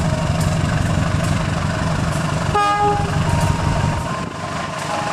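GE CC206 diesel locomotive idling with a steady low drone, then giving one short horn blast about two and a half seconds in, the signal as the train gets ready to depart.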